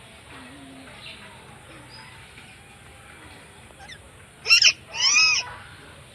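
Indian ringneck parakeet giving two loud shrill calls near the end: a short sharp one, then a longer one that rises and falls in pitch.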